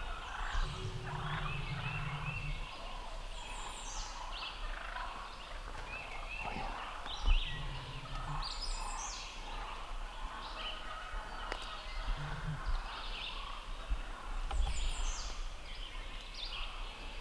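Wild turkeys gobbling and calling while jakes fight a longbeard gobbler, the calls coming again and again.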